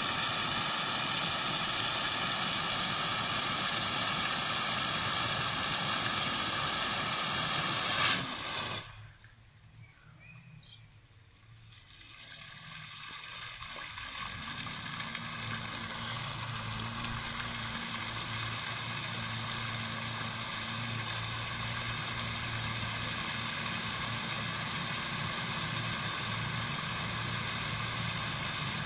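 Fountain jets hissing and splashing steadily. The sound cuts off suddenly about eight seconds in, then builds back over several seconds to a steady splash with a low hum.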